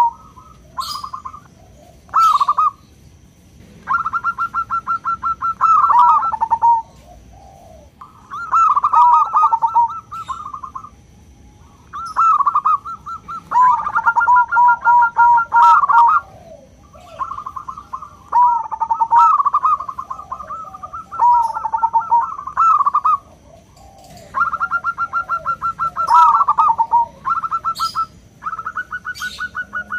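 Zebra doves of the local Indonesian perkutut strain cooing in repeated phrases of rapid staccato notes. Each phrase lasts one to two seconds, many end in a lower-pitched trill, and short pauses separate them.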